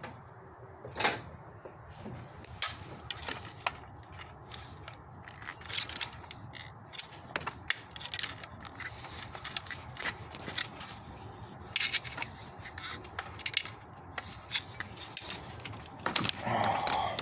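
Irregular clicks, knocks and scrapes of hand tools and parts being worked in a car's engine bay during an ignition coil change.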